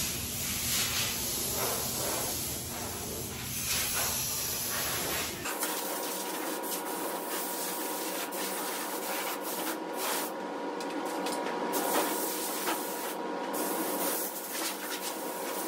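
Compressed-air blow gun hissing steadily as it blows dust off a primed truck cab, with a low rumble under it. About five seconds in the rumble drops away and a steady hiss with a faint whine carries on.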